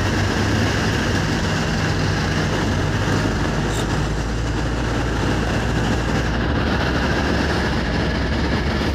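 A vehicle driving along a highway: a steady low engine hum under continuous road noise.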